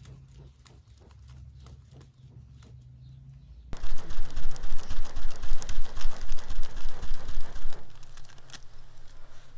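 Woven straw hand fan waved rapidly over glowing charcoal, a rhythmic whoosh of air at about three strokes a second. It gets much louder from about four seconds in and eases off near the end.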